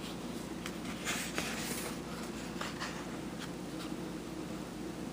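Faint scratchy rustling, as of a picture book's paper pages being handled, over a steady low room hum; the rustling is busiest in the first couple of seconds.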